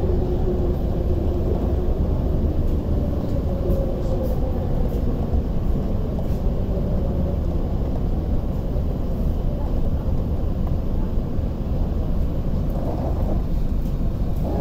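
Inside an MTR West Rail Line electric train braking into a station: the traction motors' whine falls in pitch and fades over the first several seconds as the train slows, over a steady low rumble of the carriage.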